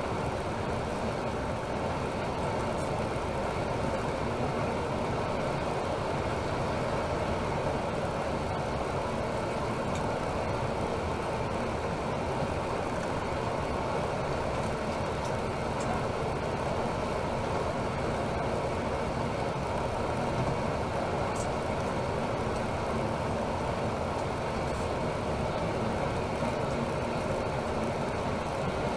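Steady engine and road noise inside a Temsa Maraton coach cruising on a motorway, with an even hum that holds level throughout.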